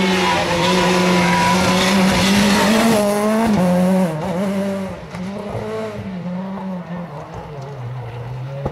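Rally car engine at high revs as the car passes on a snowy stage, with a brief dip and pick-up in pitch about three seconds in. About four seconds in it gets quieter, and it falls lower as the car pulls away around the bend.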